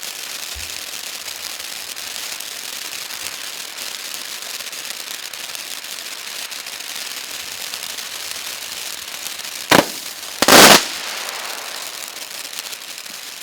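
Firework fountain spraying with a steady hiss and crackle. A sharp bang comes a little under ten seconds in, and a louder, slightly longer blast follows under a second later, as the fountain's hiss eases off toward the end.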